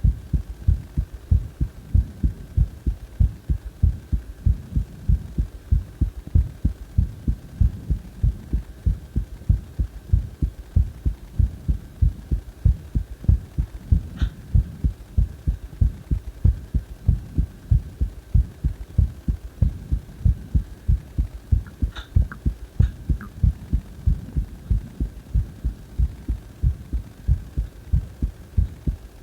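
A person's heartbeat, recorded close up: an even, regular train of low thumps, with a faint steady high hum behind it. A few faint clicks come about halfway through and again about three quarters of the way in.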